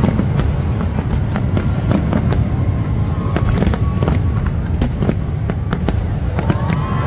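Fireworks bursting: a rapid, irregular run of sharp bangs and crackles over a continuous low rumble.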